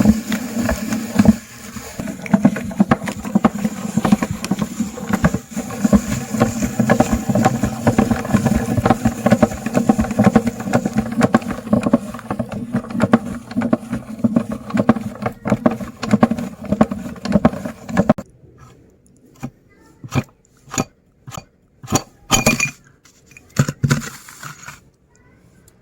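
Electric meat grinder running steadily while it crunches candy, with a constant crackle of cracking pieces over the motor hum. The motor cuts off about two-thirds of the way through, followed by a scatter of separate sharp clicks and knocks.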